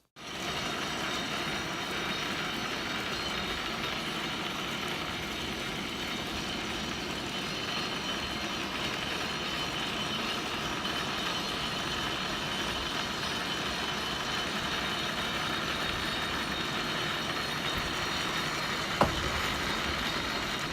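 Kintetsu Ikoma Cable funicular car running on its rails: a steady rumbling rail noise, with a single sharp knock about nineteen seconds in.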